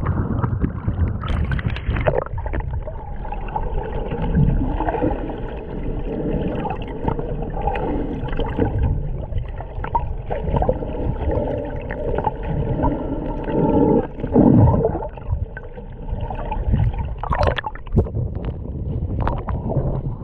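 Muffled water sound, as heard by a camera under the surface: gurgling and sloshing with a faint steady hum. A few louder surges come and go, the strongest about two-thirds of the way through.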